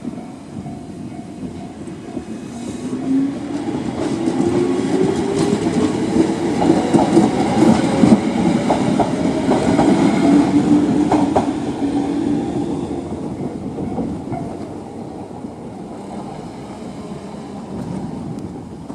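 Toyama Chiho Railway 14760-series electric train passing over a level crossing, loudest about halfway through and then fading away. Its wheels click over the rail joints and a motor whine rises in pitch.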